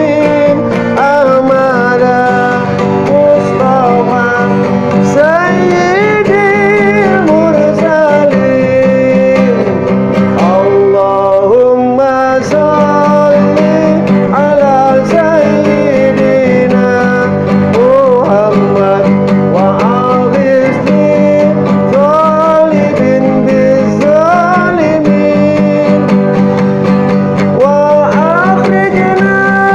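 A man singing a sholawat, an Islamic devotional song, to his own strummed acoustic guitar. The melody rises and falls in long sung lines over a steady strum.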